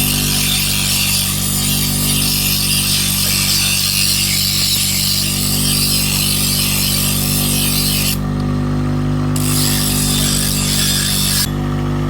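A motor-driven machine running steadily, a constant low hum under a hiss; the hiss cuts out briefly twice in the second half.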